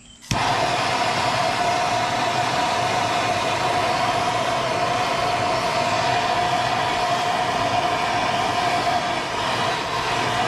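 Handheld gas torch lighting a moment in, then burning with a loud, steady hiss as its flame preheats a metal sinker mold.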